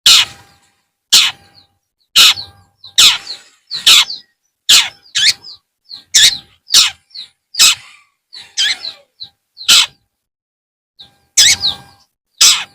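Long-tailed shrike (cendet) calling: a string of short, loud calls about once a second, each with a quick falling sweep, with softer chirps in between.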